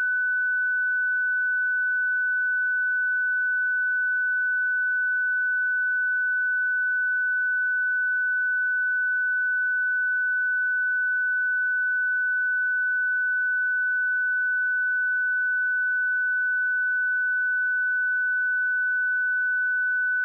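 A pure 1496 Hz sine-wave test tone, held at a steady pitch and level, used to check speakers or headphones.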